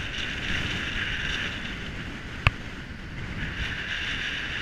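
Strong wind buffeting the microphone, with the hiss of surf breaking on a rocky shore behind it. A single sharp click about halfway through.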